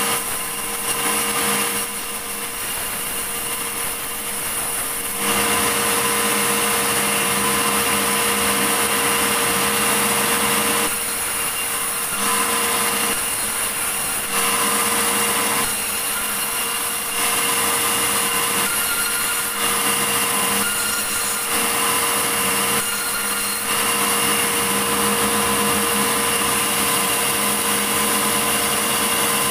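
Sawmill running steadily while sawing a large medang log, its loudness dipping briefly and coming back several times.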